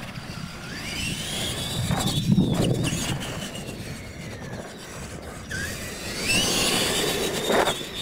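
Retro R/C monster trucks' electric motors and gears whining as they race, the pitch rising as they speed up, falling off, then rising again. A sharp knock near the end as a truck hits a ramp or lands.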